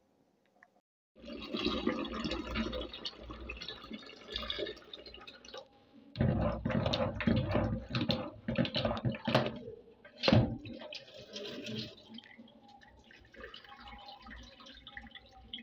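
Water splashing in a plastic bowl as a hand swishes shelled green peas around to wash them, with water running into the bowl. It starts about a second in, is loudest in the middle with a sharp splash near 10 seconds, and is quieter over the last few seconds.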